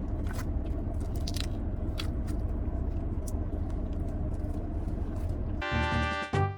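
Steady low road rumble inside a moving car's cabin, with scattered small crackles and clicks over it. Music with pitched instruments starts near the end.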